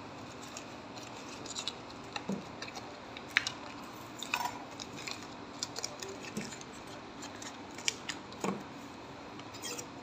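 A plastic bag crinkling and crackling as it is handled, in irregular sharp clicks and rustles, the sharpest about a third of the way in.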